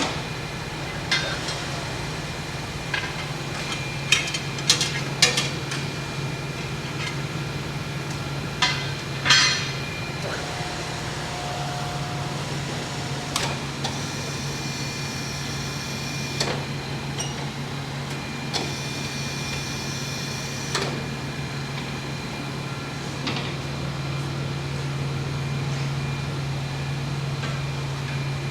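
Scattered metal clinks and knocks from tire-shop work on a truck wheel, over a steady low machine hum that grows a little louder near the end.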